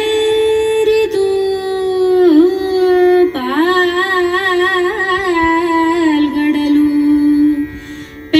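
A woman's voice singing a line of Kannada verse in Carnatic style, drawn out on long held notes with wavering ornaments. It trails off near the end.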